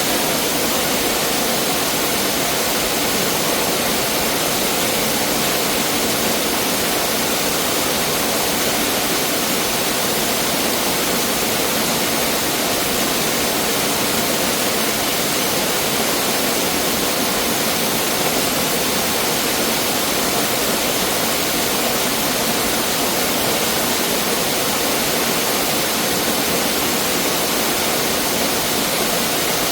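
Mountain stream water rushing and splashing over rocks in a steady, unbroken rush.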